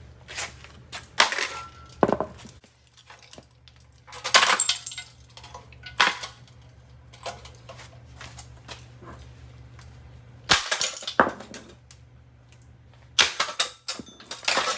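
Harbor Breeze ceiling fan being smashed: about eight irregular, sharp blows and clanks on its metal parts. A low steady hum runs underneath and cuts off suddenly about two-thirds of the way through.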